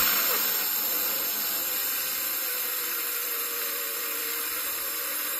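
A steady, even hiss, strongest in the high end, that cuts in abruptly.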